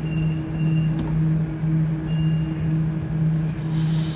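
Sydney Trains double-deck electric train standing at the platform, its on-board equipment giving a steady low hum that pulses gently about once a second. A brief high ringing tone sounds about two seconds in, and a hiss starts near the end.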